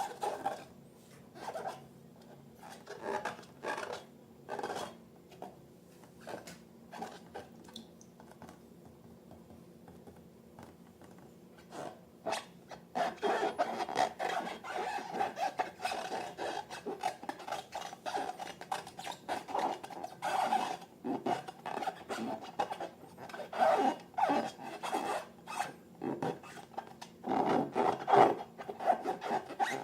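Rubber balloons squeaking and rubbing as they are handled, in irregular short bursts, sparse at first and near-continuous from about halfway through.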